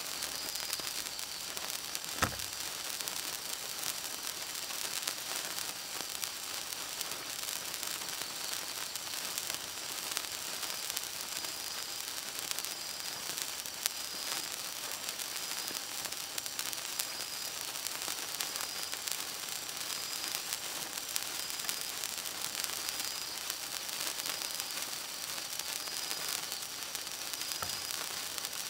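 A gold wire sparkler burning: a steady fizzing hiss with scattered fine crackles as sparks burst off it. A dull thump about two seconds in.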